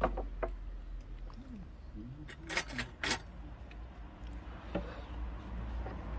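Someone eating: chewing with a scattering of sharp clicks and clinks of tableware, the loudest two about two and a half and three seconds in, over a steady low hum.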